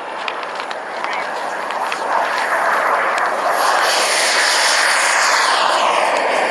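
Small turbine engine of a radio-controlled model jet at high power on its takeoff run and climb-out: a loud jet rush with a high whine that swells about two seconds in, the whine then falling in pitch as the jet passes by.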